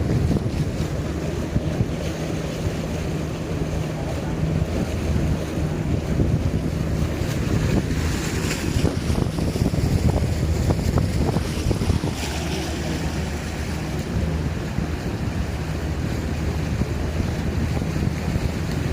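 A small fishing boat's engine running steadily at sea, with wind buffeting the microphone and waves against the hull.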